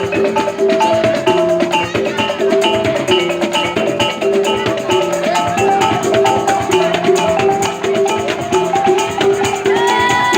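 Music: a repeating melody of short struck pitched notes over steady, quick percussion strokes. A brief gliding vocal sound comes near the end.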